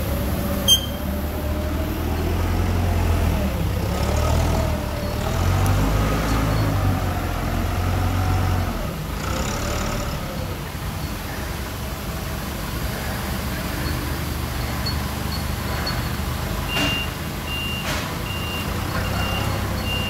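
Caterpillar forklift engine running, revving up and down with a wavering whine for the first half, then settling. Near the end its reversing alarm starts, repeating short high beeps. A sharp click sounds just under a second in.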